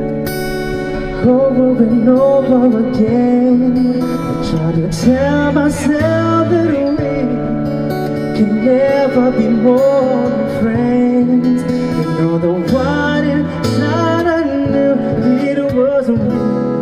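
Live bossa nova-style ballad: acoustic guitar and violin accompaniment under a sung melody that comes in about a second in.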